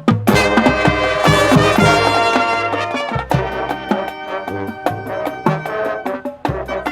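High school marching band, brass and drumline, coming in all at once on a loud full chord and playing on. From about three seconds in, evenly spaced drum strokes carry the beat under the brass.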